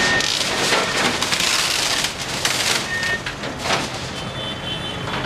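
JCB backhoe loader's bucket crushing a wooden shop front and a pile of planks and debris: continuous crackling and splintering of wood, with several sharp cracks as boards break.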